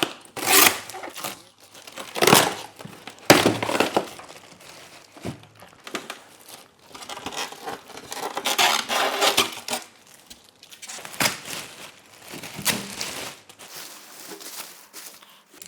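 Plastic packaging crinkling and rustling as it is handled and pulled off a new toaster oven, in irregular bursts with a few louder crackles near the start.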